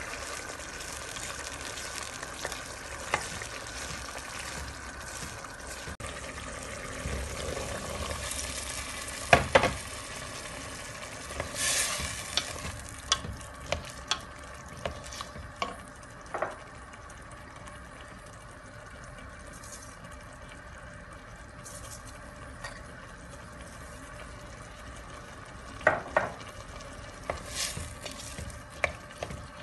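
A wooden spoon stirs a tomato and paprika base, and then beans, in a stainless steel pot over a low sizzle. The spoon knocks against the pot's side now and then, loudest about nine seconds in, again in a run of clacks a few seconds later, and near the end.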